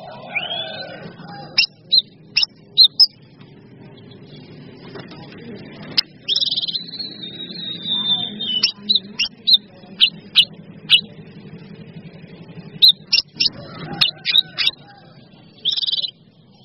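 Cage songbirds of the bulbul and leafbird kind singing: sharp, high, short chirps repeated in quick bursts, with a long trilled whistle about six seconds in that falls slightly in pitch. A steady low rumble runs underneath.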